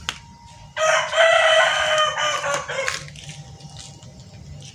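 A rooster crowing once, one call of about two seconds, the loudest sound here.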